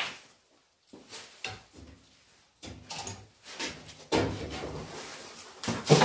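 Irregular knocks, clunks and scrapes of hard objects being handled, with a heavier thud about four seconds in followed by a low rumble, and another loud knock near the end.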